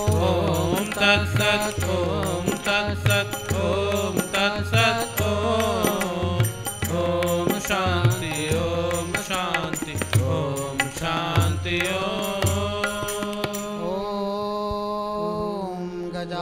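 A man sings a Hindu devotional chant with harmonium and tabla accompaniment: the harmonium holds a steady drone and the tabla keeps a rhythm of low bass strokes. About three-quarters of the way through, the tabla stops, leaving the voice holding a long note over the harmonium.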